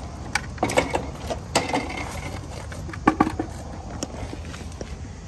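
Irregular knocks and clatter of hard parts being handled, in small clusters, over a steady low rumble.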